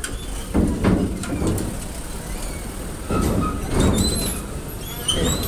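Heavy metallic clattering and rumbling in two bouts, about a second in and about three seconds in, with short high squeals of metal around the second bout.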